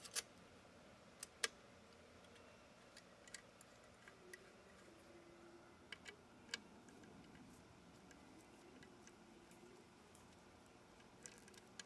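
Near silence broken by a few light, sharp metal clicks and taps at uneven intervals, the sharpest just after the start and around a second and a half in: a hex key and a socket bit being fitted into the end of a pump motor's shaft.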